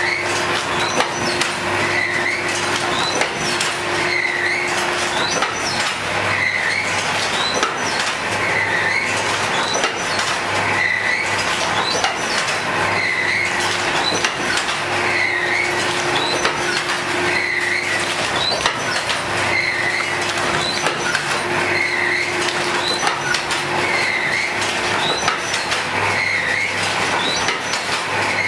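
Automatic paper plate (dona-pattal) making machine running: a steady motor hum with a rhythmic press stroke repeating about every two seconds as its heated dies form plates from a paper roll.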